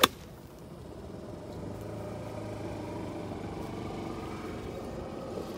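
A golf iron strikes the ball off fairway turf with one sharp click at the start. From about a second in, a golf cart's engine runs steadily, growing louder as it comes closer.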